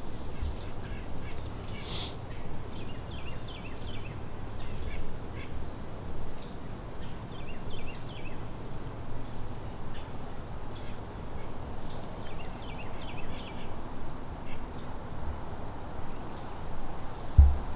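Birds calling in a few short bursts of quick, high repeated notes, over a steady low rumble. There is one low thump near the end.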